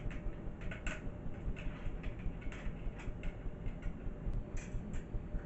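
Light, irregular metal clicks as the screw and cap are refitted to the folding e-bike's handlebar stem with an Allen key.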